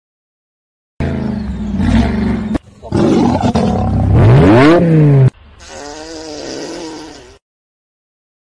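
A lion roaring, set against a BMW sedan's quad-tip exhaust revving. There are several loud bursts with brief gaps, the loudest rising and falling in pitch, then a quieter wavering stretch that stops abruptly. It is silent for about the first second and the last second.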